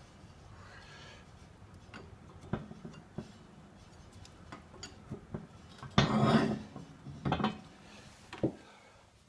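Steel keyway broach being handled and set into a cast pulley's bore: light metal clicks and clinks, then louder scraping rattles about six, seven and eight and a half seconds in, the first the loudest.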